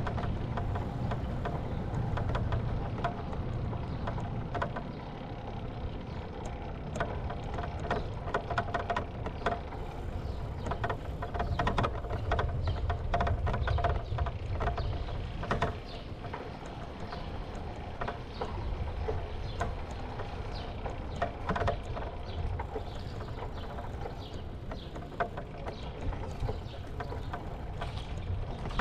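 Bicycle rolling over concrete and brick pavers: a steady low tyre rumble with frequent sharp clicks and rattles as it jolts over the paving joints, and wind buffeting the microphone.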